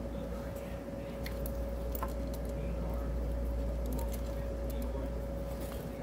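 Scattered small clicks and handling noises as gloved hands work a tire around an electric scooter's hub motor, over a steady low hum with a faint steady tone.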